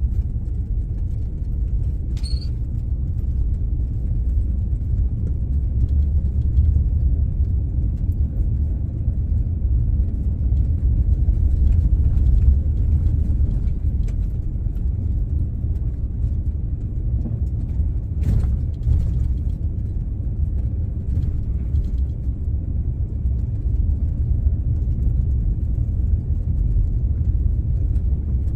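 Low, steady rumble of a vehicle driving slowly in four-wheel drive and second gear, heard from inside the cab. Two faint brief clicks, one about two seconds in and one a little past the middle.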